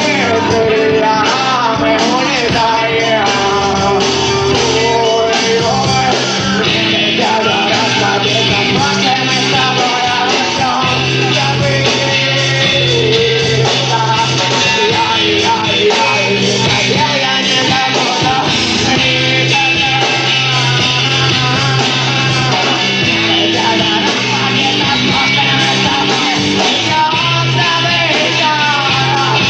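Rock band playing live, with a singer over guitar, bass and drums.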